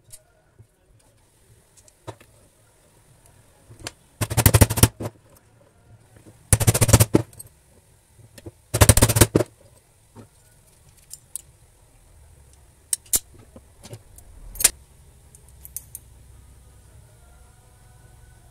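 Three short bursts of rapid metallic clattering about two seconds apart, followed by a few single clicks, as metal wire hooks are bent and worked at a bench vise.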